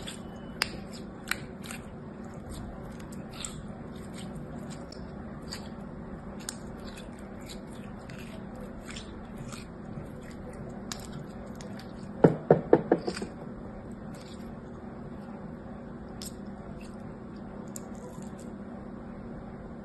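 Translucent yellow-green slime being squeezed and stretched by hand, giving scattered small sticky clicks and pops, with a quick run of about six louder pops a little past the middle.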